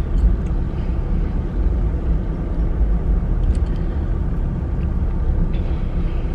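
Steady low rumble of a car's road and engine noise heard from inside the cabin while driving, with a few faint light ticks.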